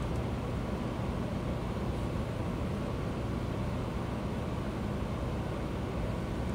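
Steady low rumbling hum and hiss of a concert hall's room noise between songs, with no music playing.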